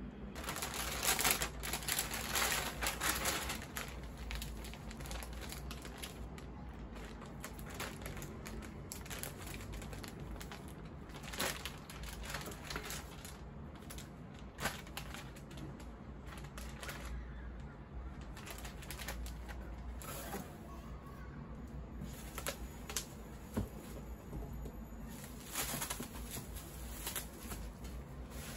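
Plastic packaging and bubble wrap crinkling and rustling as parcels are unwrapped by hand, with many small clicks and taps. It is busiest in the first few seconds and again near the end.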